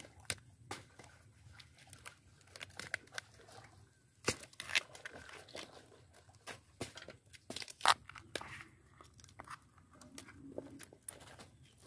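Banana flower being stripped by hand: crisp snaps and tearing as the bracts are peeled back and the florets broken off, at an uneven pace, with a few sharper snaps among them.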